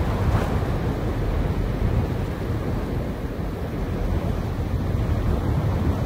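Wind blowing through grass, with wind in trees behind it: a steady rushing that rises and falls a little.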